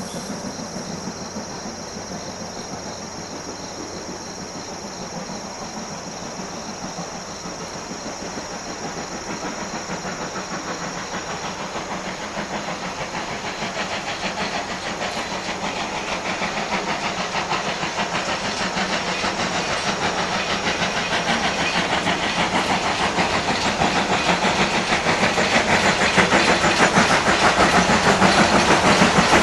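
Steam locomotive sound effect: a train running with fast rhythmic chuffing and wheel clatter and a steam hiss, growing steadily louder as it approaches.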